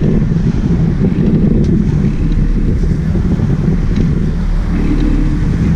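Sport-fishing boat under way: a steady, loud low rumble of its engines mixed with wind buffeting the microphone and water churning past the stern.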